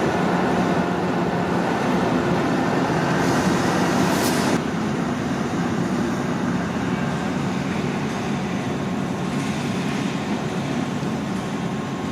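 Diesel railway engine running steadily with a low hum. A brief hiss ends about four and a half seconds in, and the sound drops a little after it.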